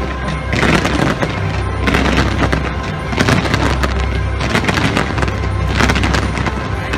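Fireworks: many shells bursting in rapid succession with booms and crackling, over show music played loud through loudspeakers.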